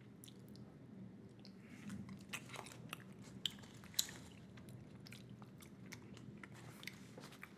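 Close-miked chewing of a fresh mouthful of shredded bubble-gum-flavoured Big League Chew: a quick run of short mouth clicks and smacks. The sharpest click comes about four seconds in.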